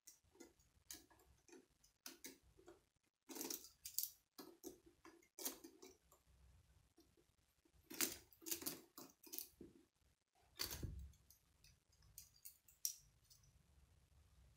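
K'nex plastic rods and connectors clicking and rattling as they are snapped together by hand: faint, irregular clicks, with louder flurries about a quarter of the way in and again past the middle.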